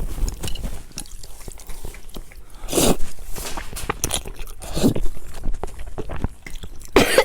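A person chewing and biting food close to the microphone, with irregular wet smacks and clicks and a couple of louder bursts, one about three seconds in and one near the end.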